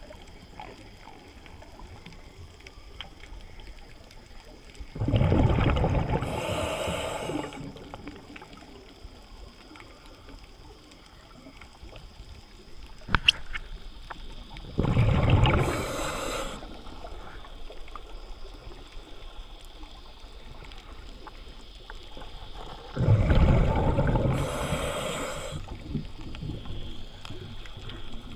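Scuba diver breathing underwater through a regulator: three loud rushes of exhaled bubbles, about eight to nine seconds apart, with a faint steady hiss between them. A single sharp click comes near the middle.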